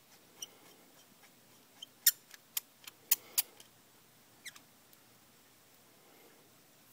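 M10 x 1.5 hand tap squeaking as it is backed out of freshly cut threads in a pool ball: about eight short, sharp squeaks at irregular intervals, bunched between two and three and a half seconds in.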